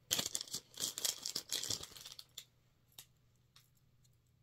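Packaging crinkling and tearing for about two seconds as a small keychain is unwrapped, then a few single light clicks as it is handled.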